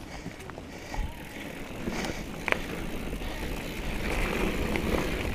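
Trek Remedy 7 mountain bike riding along a dirt trail: tyre and trail noise with scattered sharp clicks and rattles from the bike, growing louder about two seconds in.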